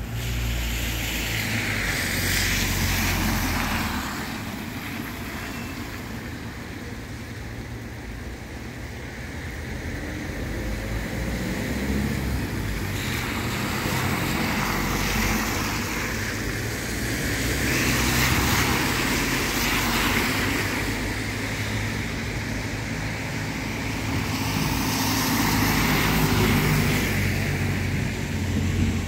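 Cars passing over a rain-soaked road, their tyres hissing through the water in four slow swells of a few seconds each, over the steady patter of rain.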